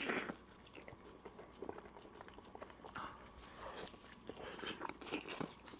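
A person biting into and chewing pepperoni pizza with a black-rice crust: faint, irregular bite and chewing noises, with a bite right at the start and more chewing between about three and five seconds in.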